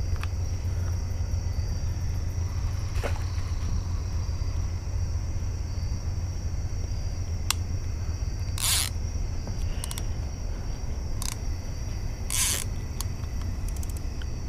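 Steady chorus of night insects over a low steady rumble, broken by a few short scrapes and light clicks as fishing gear is handled, the two loudest scrapes about nine and twelve seconds in.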